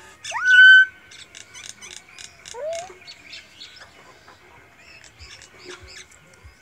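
Common mynas calling: a loud rising whistle about half a second in, then a run of dry, rattling clicks with a second short rising note, and more scattered clicks near the end.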